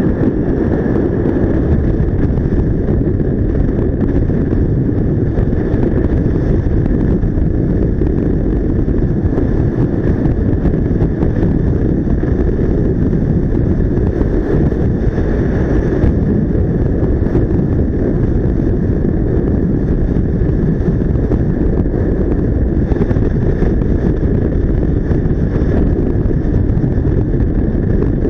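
Steady wind rushing over the camera microphone on a moving Yamaha XMAX scooter, with the scooter's engine and road noise running underneath at an even level.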